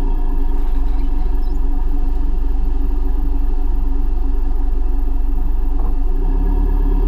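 Toyota Land Cruiser KZJ90's 3.0-litre turbodiesel engine running at steady revs while the vehicle drives slowly over soft beach sand, a constant drone with a deep rumble underneath.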